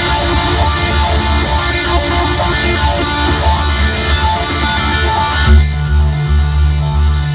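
Rock band playing live, with electric guitar and bass. About five and a half seconds in, the upper parts drop away and a pulsing bass line carries on.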